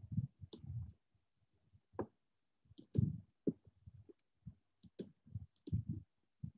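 Computer mouse clicking, a series of short separate clicks, mixed with soft low thumps.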